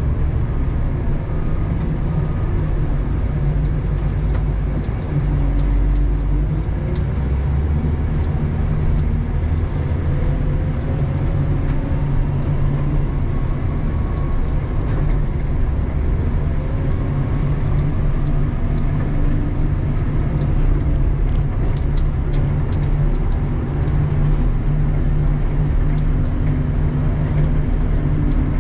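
Doosan DL250 wheel loader's diesel engine running steadily while plowing snow, heard from inside the cab, with a fainter whine that glides up and down in pitch several times.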